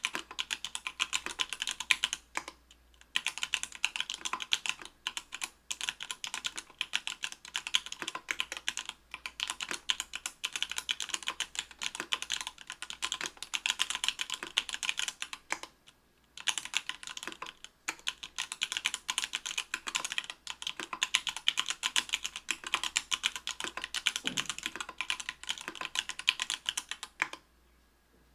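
Continuous fast typing on an Octagon V3 mechanical keyboard with stock, unlubed Everglide Sky Blue 55g linear switches on an aluminum plate under GMK keycaps: a dense stream of key clacks that pauses briefly about three seconds in, around the middle, and near the end.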